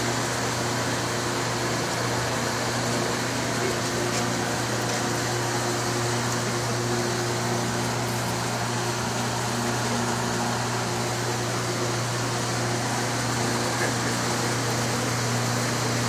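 Steady mechanical hum: a low drone with a few fainter steady tones above it over an even hiss, unchanging throughout.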